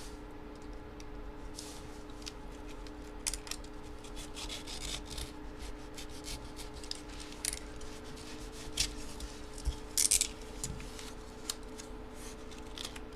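Paper envelope being handled and opened: scattered short scratching and rubbing sounds over a faint steady hum.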